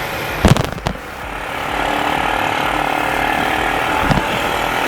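ATV engine running while riding, a steady noisy drone with a held tone setting in about two seconds in. Sharp knocks come twice about half a second in, and once more, fainter, near the end.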